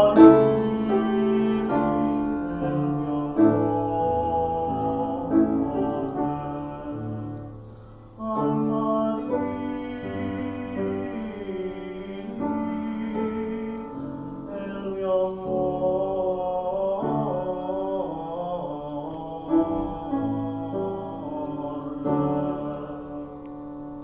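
A male voice sings a classical-style solo with vibrato to upright piano accompaniment. The music dips briefly about eight seconds in, comes back, and tapers off near the end.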